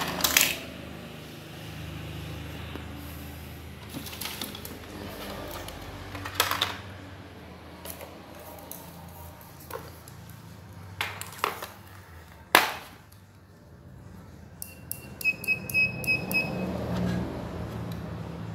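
Scattered clicks and knocks of a circuit board and multimeter test leads being handled, the sharpest knock about twelve seconds in. Near the end an analog multimeter's continuity buzzer beeps in a few short, broken beeps as the probes touch the board.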